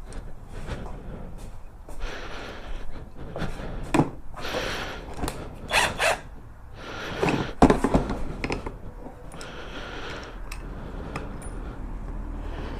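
Hand tools and motorcycle parts being handled during work on a shift lever and rear-set: scattered clicks, knocks and short scraping or rustling sounds at irregular intervals.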